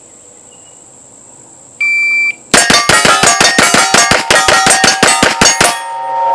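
A shot timer beeps once, then a 2011 pistol fires a fast string of 18 shots in about three seconds, with steel plates ringing under the hits. The steel keeps ringing after the last shot.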